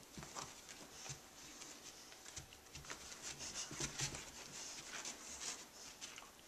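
Two dogs scuffling on carpet as they tug a fleece toy between them: irregular soft paw patter and rubbing, busiest around the middle.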